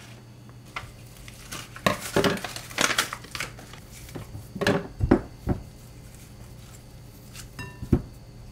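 Crinkling and rustling of a plastic-labelled mesh bag of sweet potatoes as potatoes are pulled out of it, with a few dull knocks as they are set into a glass bowl.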